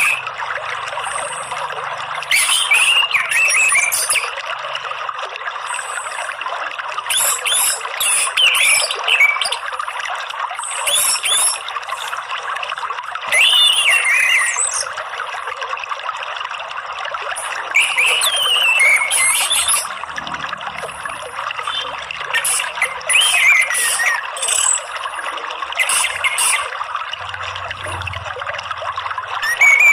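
Orange-headed thrush singing short warbled phrases every few seconds over a steady wash of running water, with thin high chirps between them.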